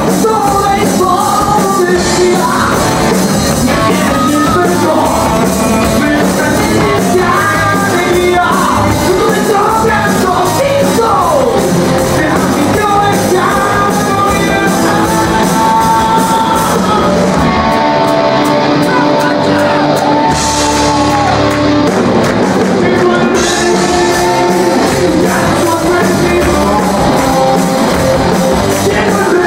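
Live rock band playing loud: electric guitars, bass and drums with a lead singer. The high cymbal wash drops away for a few seconds after the middle, then comes back.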